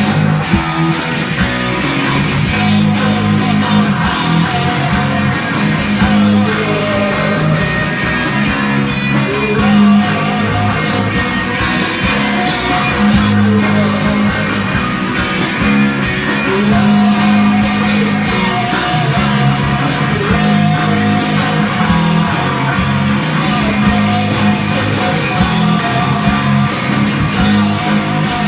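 Psychedelic hard rock band playing live: distorted electric guitar over bass and drums in a long instrumental passage, with a held, wavering line above the low notes that may be a voice.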